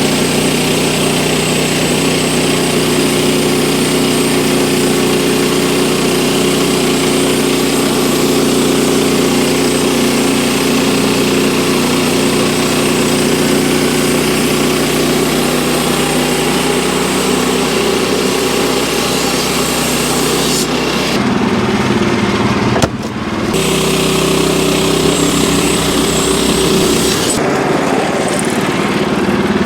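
Engine running steadily and loud, its sound shifting about 21 seconds in and again near 27 seconds, with a brief dip near 23 seconds.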